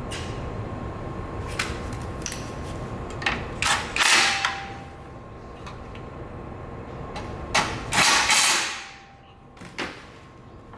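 Workshop mechanical sounds: scattered clicks and knocks over a steady hum, with two loud, short rushing noises about four seconds apart, the second fading out.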